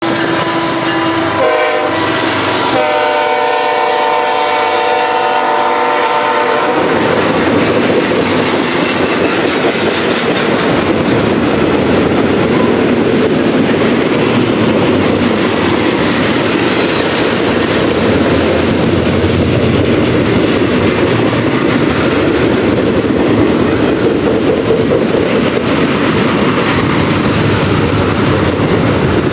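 BNSF diesel freight locomotive's horn sounding as it passes, dropping in pitch after about a second and a half, then a longer chord blast that stops about six and a half seconds in. After that, the steady rumble and clatter of double-stack container cars rolling by.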